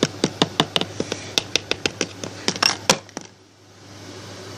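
Quick run of light plastic taps and clicks, about six a second, from a small plastic toy pet figure being knocked against a surface. The taps stop about three seconds in.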